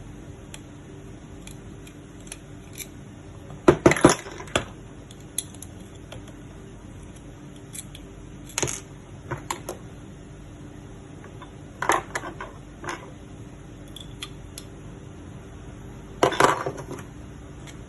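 Small metal magazine parts being handled: scattered clicks and short clattering knocks, louder about four, nine, twelve and sixteen seconds in, over a steady low hum.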